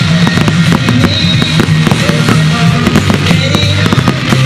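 Fireworks display: many aerial shells bursting in quick succession, a dense run of bangs and crackles, over loud music with held low notes.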